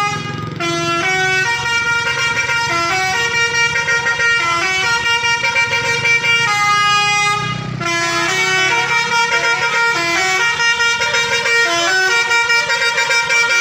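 Bus 'telolet' horn playing a tune: a long run of loud horn notes stepping up and down in pitch, with a brief break about eight seconds in, over a low rumble.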